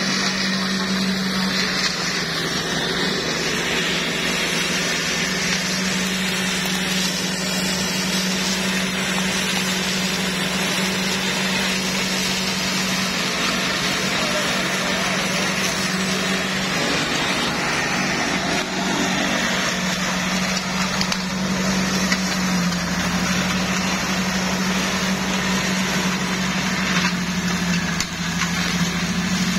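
Homemade flail mower running steadily: a constant engine hum under a broad rushing noise from the flail rotor cutting and shredding grass.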